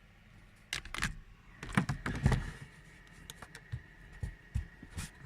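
Hands pressing and knocking on the plastic centre dashboard panel of a Toyota Voxy/Noah: a run of plastic clicks and knocks, thickest about two seconds in, then scattered single taps. The panel gives under the hand without creaking, now that foam rubber tape cushions it.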